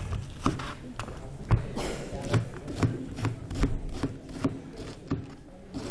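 Kitchen knife cutting through a head of cabbage on a cutting board: a steady run of knocks, about two cuts a second.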